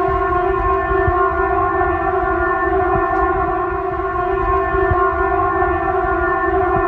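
Emergency alert alarm tone: one loud, steady, buzzy electronic tone held without change in pitch, over a low rumbling hiss.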